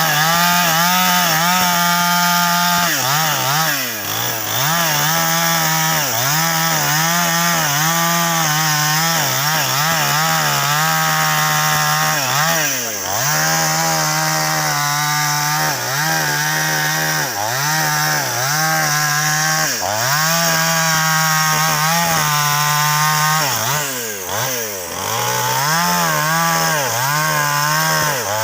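Chainsaw running at full throttle, cutting into a large sengon (albizia) trunk. Its engine pitch dips and recovers every second or two as the chain bites into the wood.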